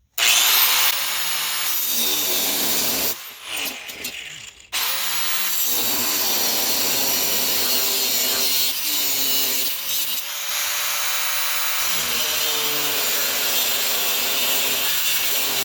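Angle grinder with a thin cutoff wheel cutting metal, a continuous high grinding hiss that eases off about three seconds in and picks up again near five seconds.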